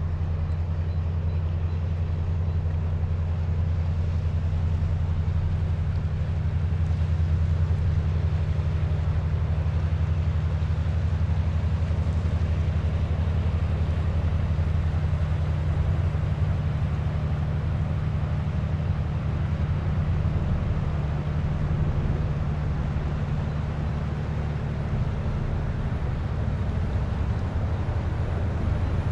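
Steady low drone of a passing river ship's engine, over a soft, even wash of water and breeze.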